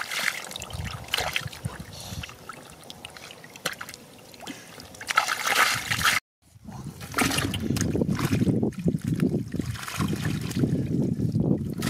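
Shallow water splashing and trickling. It breaks off for a moment about six seconds in, then a heavier, lower sloshing follows.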